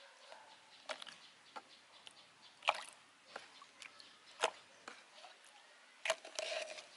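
A metal spoon clinking against a container in a few scattered sharp taps, as liquid is measured in spoonful by spoonful.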